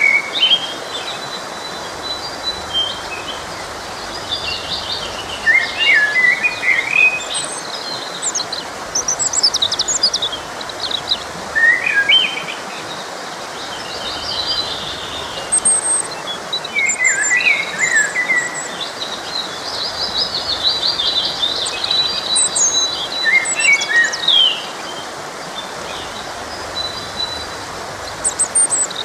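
Songbirds chirping and singing in short, varied phrases over the steady rush of a forest stream.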